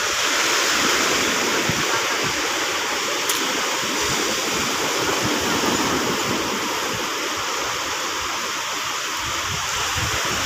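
Steady rushing noise of rough surf breaking on a sandy beach.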